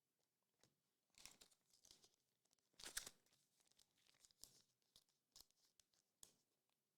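Faint crinkling and tearing of a trading-card pack wrapper and cards being handled, in short irregular bursts; the loudest is about three seconds in.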